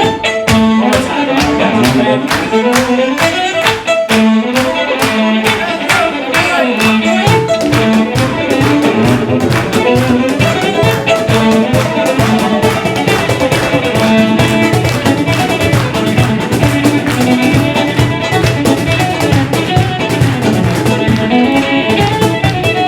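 Band playing an instrumental passage: a fiddle melody over guitar and bass, with a steady rhythm.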